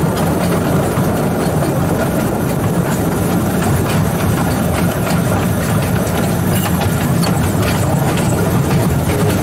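Steady low drone of the 2-foot-gauge electric railway vehicle No. 119 rolling along the track under power, with faint scattered clicks from the wheels on the rails.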